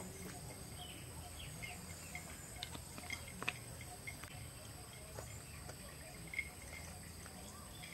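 Outdoor evening ambience: a steady high insect drone with faint scattered bird chirps, and a few light clicks and taps about three seconds in.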